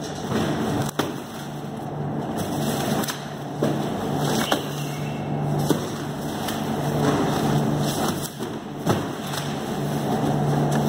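Steady hum and rush of cold-room evaporator fans, with a few sharp knocks and clatters as frozen fish blocks and trays are handled on metal storage racks.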